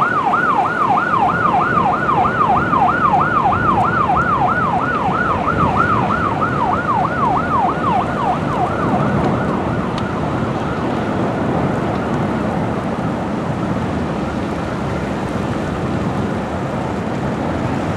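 Emergency vehicle siren in fast yelp mode, its pitch rising and falling about three to four times a second, fading out about halfway through. A steady rushing noise of wind and road noise from the moving vehicle continues underneath.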